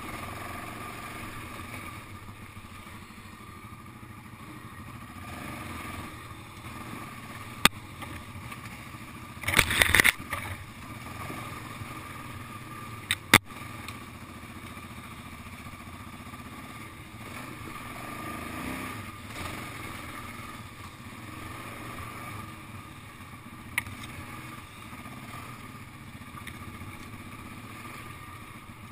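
ATV engine running steadily as the quad rides along. A few sharp knocks cut through it, and a brief louder rush comes about ten seconds in.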